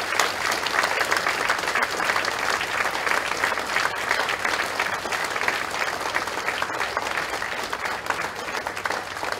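Audience applauding: many people clapping together in a dense, steady patter that eases off slightly near the end.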